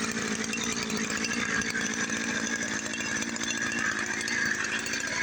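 Small engine of a motorized backpack sprayer running steadily.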